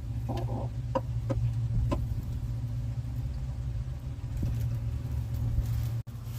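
A steady low hum like a running motor, with a brief soft pitched sound and a few faint clicks in the first two seconds.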